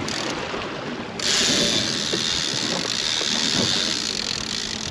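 Baitcasting reel in free spool, the spool whirring steadily as line pays out under a 4-ounce bottom bouncer sinking toward the bottom. The whir starts suddenly about a second in.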